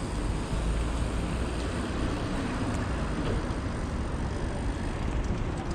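Steady city traffic noise, a continuous low rumble.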